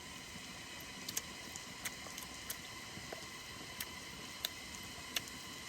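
Faint steady outdoor background hiss with a few thin steady tones, broken by scattered small clicks and ticks.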